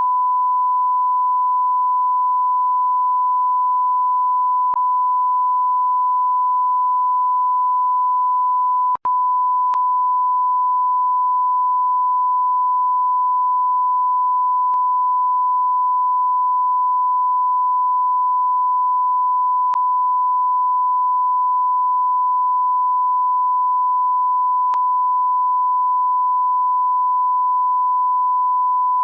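Continuous 1 kHz sine-wave censor bleep, one steady pure tone held without a break except a momentary dropout about nine seconds in.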